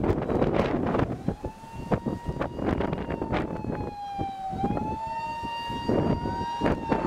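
Electronic siren of a first-generation Himedic ambulance used as a doctor car, on an emergency run: a single tone that starts about a second in, sags slowly in pitch and rises again, over passing traffic.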